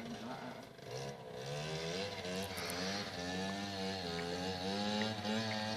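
Moped engines buzzing, their pitch rising and falling as they rev on and off. The sound dips briefly about a second in.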